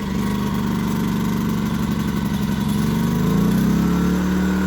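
Predator 2000 inverter generator's small single-cylinder four-stroke engine running just after being pull-started. About three seconds in, its speed rises and it settles at a higher, steady pitch.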